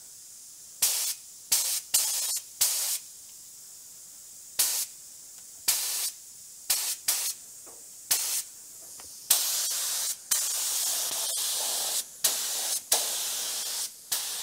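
Compressed-air paint spray gun hissing in a dozen or so short trigger pulls, then from about nine seconds in in longer, nearly unbroken passes.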